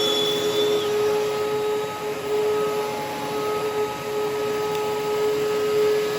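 Miele upright vacuum's motor running steadily with a strong hum and a noisy rush, sounding off: the motor is fouled from sucking up fine powder without the bag properly on. A high whine above it dips and stops about a second in.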